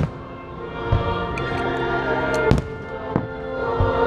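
Aerial firework shells bursting, about five bangs, the loudest about two and a half seconds in, over the fireworks show's patriotic soundtrack music.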